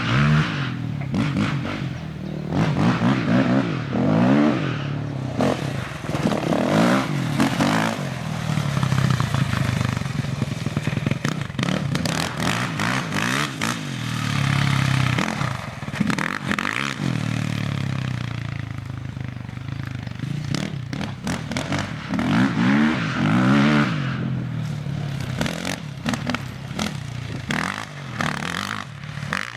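Dirt bike engines revving up and down as they are ridden off-road, with pitches rising and falling every second or two and at times more than one engine heard at once.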